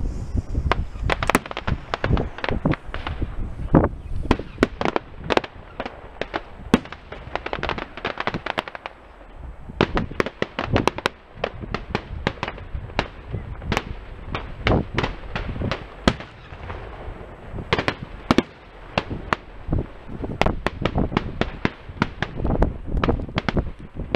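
Aerial fireworks shells bursting in quick, irregular succession: dozens of sharp bangs, at times several a second, thinning out briefly partway through.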